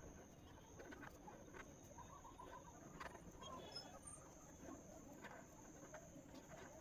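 Near silence: faint, scattered scratching of a pencil drawing on paper.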